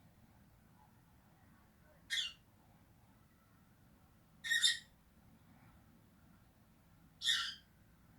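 Lovebird giving three short, shrill calls, spaced about two and a half seconds apart.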